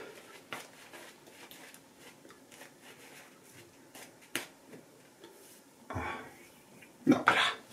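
Shaving brush working lather on a face: faint, repeated soft brushing and scratching strokes with small clicks, one sharper click about four and a half seconds in.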